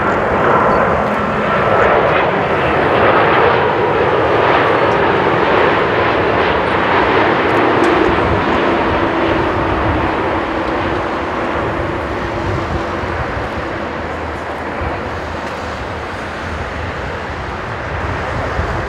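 Boeing 787-9 airliner's jet engines on low final approach, a loud continuous jet noise with a whine in it. It is loudest a few seconds in as the aircraft passes close by, then slowly eases off as it moves away toward touchdown.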